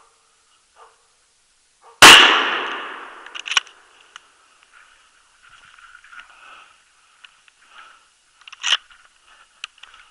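Faint bay barking of a Jämthund, two barks about a second apart, then about two seconds in a single loud hunting-rifle shot that rings out and dies away over about a second and a half; two sharp knocks follow later. It is the shot on the moose that the elkhound is holding at bay.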